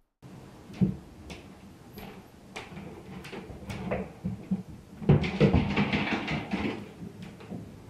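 Indoor knocks and clattering over a steady low hum: scattered sharp knocks, a loud one about a second in, then a dense run of rattling knocks about five seconds in.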